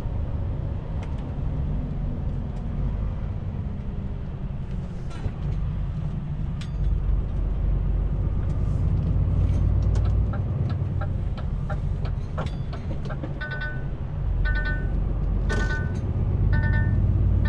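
Truck engine and road noise, a steady low rumble, with scattered light clicks. In the last four seconds, short electronic beeps repeat about once a second.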